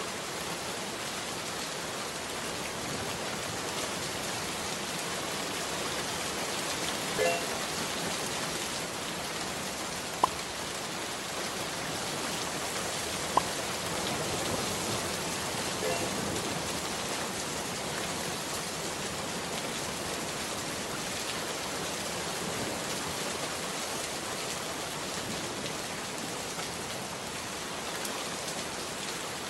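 Steady hiss of rain-like noise, with two sharp clicks about three seconds apart near the middle.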